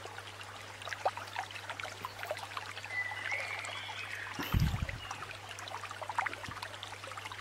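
Water trickling and bubbling, made of many small ticks over a steady low hum, with one low thump about four and a half seconds in.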